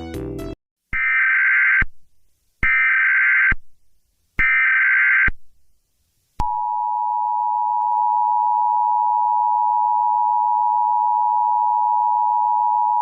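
Emergency Alert System header: three bursts of SAME digital data tones, about a second each, followed by the steady two-tone EAS attention signal. A music track cuts off just after the start.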